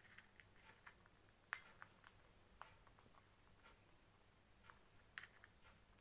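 Faint, scattered clicks and taps of an Indian ringneck parrot's beak picking and chewing food from a stainless steel bowl, the loudest click about one and a half seconds in.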